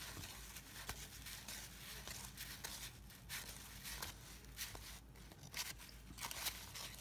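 Cardboard baseball cards sliding and flicking against one another as a stack is thumbed through: a run of faint, irregular scrapes and soft clicks.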